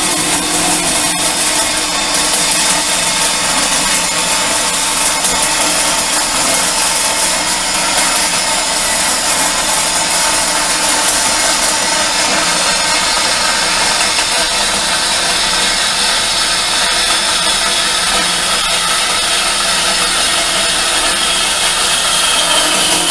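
12-inch Craftsman band saw, converted to a vertical saw with a belt-and-pulley drive, running and cutting through a piece of steel bed frame. The blade makes a steady, loud, hissing grind on the metal throughout.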